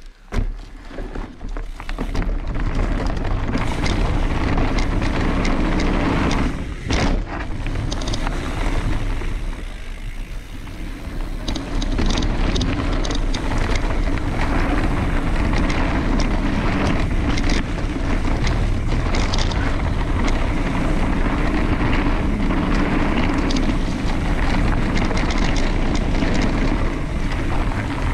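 Wind buffeting the microphone of a camera on a mountain bike descending a trail, with tyre noise and the bike's knocks and rattles over rough ground. It eases briefly about seven and ten seconds in.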